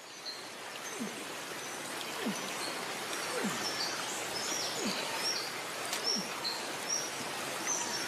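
Tropical rainforest ambience: a steady hiss of rain, with many short high bird chirps scattered throughout. A short, low, falling sound repeats roughly once a second.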